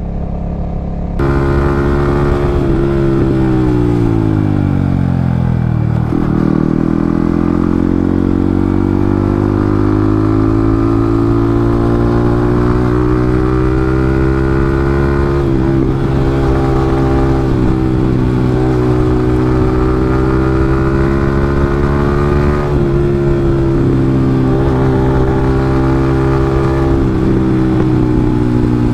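Yamaha MT-15's single-cylinder engine running through a loud exhaust while the bike is ridden. The engine note falls as it slows a couple of seconds in, climbs back up, and then holds a steady cruising note with a few brief dips.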